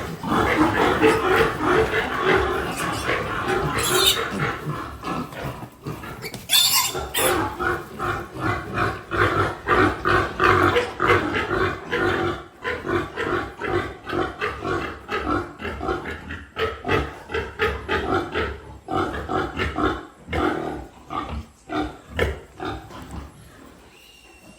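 Six-week-old piglets making rapid short pig calls over and over, dense for about twenty seconds and then thinning out and fading near the end.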